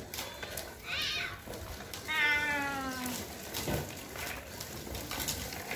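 A toddler's high-pitched whining cry: a short wail about a second in, then a longer drawn-out one that falls slightly in pitch.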